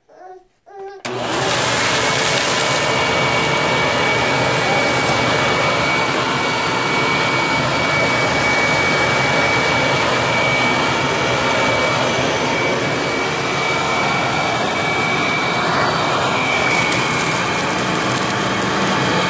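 Hoover vacuum cleaner switched on about a second in and running steadily, a loud even rush of air with a faint high whine on top.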